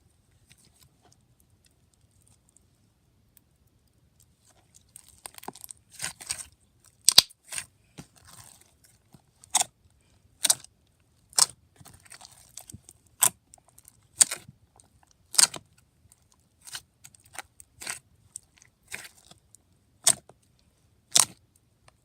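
Thick slime with foam beads being squished and pressed by hand, giving sharp pops and crackles about once a second, starting about five seconds in.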